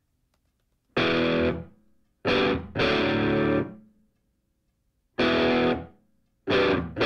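Distorted electric guitar playing five loud chords with silent gaps between them. The first comes about a second in, and each rings for under a second before dying away.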